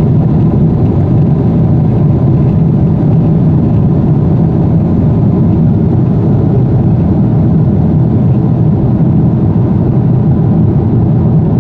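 Jet airliner cabin noise in flight: a loud, steady, low rush of engines and airflow heard from inside the passenger cabin, with no change throughout.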